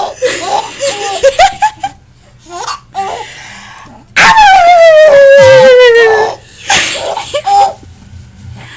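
A baby laughing through the hiccups: breathy giggles, then a long squeal about four seconds in that slides down in pitch, then more breathy giggles.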